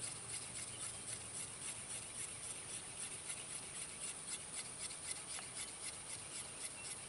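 Small knife blade whittling a wooden stick, shaving off thin curls: a run of soft, short scraping strokes, several a second.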